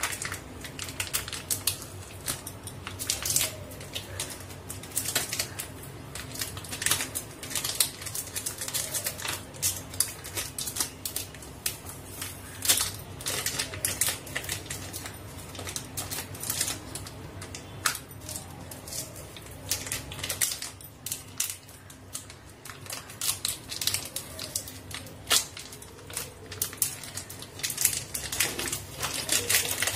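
Plastic Oreo biscuit wrapper crinkling and tearing as it is peeled off a frozen ice-cream bar: a long run of quick, irregular crackles.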